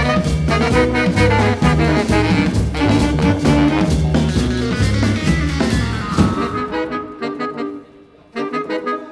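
Live band playing jazz/swing with saxophone and brass over drums and bass. Past the middle the drums and bass drop out, there is a brief near-pause, and then the horns carry on alone.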